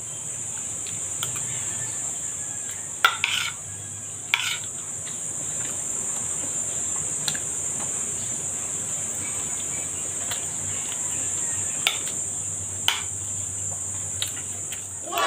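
Steady high-pitched insect chirring in the background, with a few sharp clinks of a metal spoon against a ceramic bowl.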